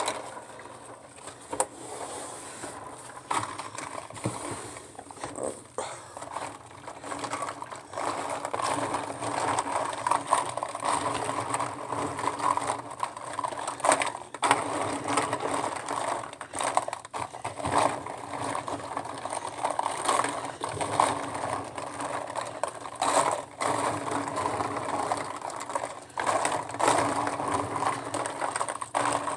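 Plastic lip gloss tubes and caps clacking and rubbing against each other and the plastic tub as a gloved hand stirs them in soapy water: a steady run of small irregular clicks and rattles.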